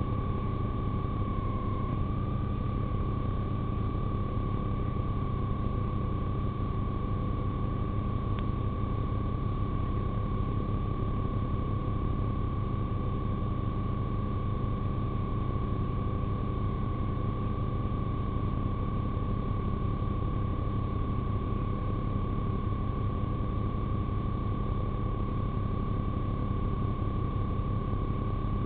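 Steady low rumble of a police car idling, heard from inside the car, with a steady high-pitched tone held throughout.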